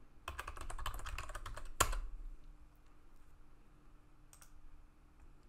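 Typing on a computer keyboard: a quick run of keystrokes lasting about a second and a half, ending in one louder keystroke, while a login password is entered. Then it goes quiet apart from a single click a couple of seconds later.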